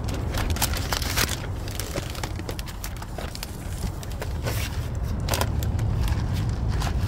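Carry-out bag rustling and crinkling as it is grabbed by its handles and lifted, with scattered clicks and knocks of handling.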